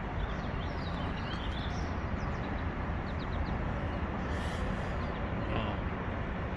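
Steady low outdoor rumble, with faint bird chirps high above it now and then.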